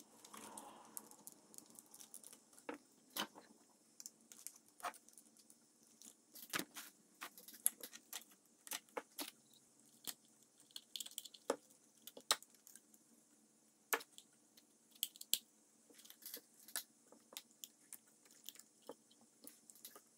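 Scattered sharp clicks, creaks and crackles of a wood-veneered plastic dashboard trim piece being handled and pried apart by hand on a workbench, as its end piece is worked loose.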